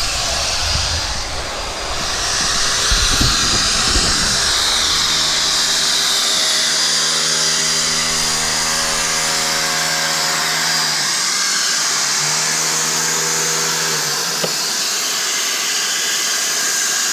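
Hand-held electric polisher running steadily as its polishing pad works the surface of a granite slab: a continuous whine with a motor hum that drops away briefly about eleven seconds in.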